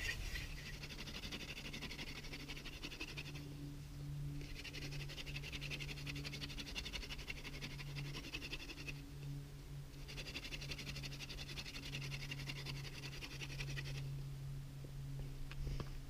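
Wooden hand-drill spindle spun between the palms in a fireboard notch: a rhythmic grinding of wood on wood in three spells of several seconds, broken by short pauses as the hands go back up the spindle, over a steady low hum. This is the gentle first spinning that warms up the friction-fire set; the grinding stops a couple of seconds before the end, followed by a click.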